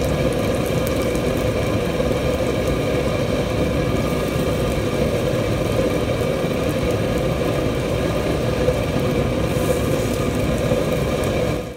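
Chicken patties frying in oil in a nonstick pan on a gas burner, under a loud, steady machine drone.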